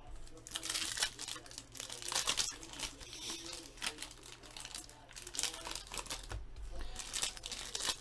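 Foil wrappers of 2014 Bowman Chrome football card packs crinkling in irregular bursts as the packs are handled and torn open.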